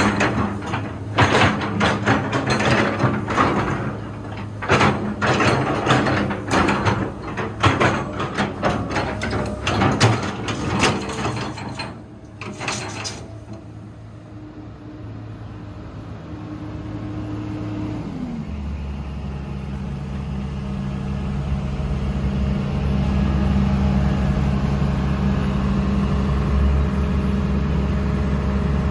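A run of metallic knocks and clatters for the first dozen seconds. Then, about eighteen seconds in, the diesel engine of a Komatsu PC230-8 hydraulic excavator comes in with a steady low drone, growing louder for several seconds and then running on steadily.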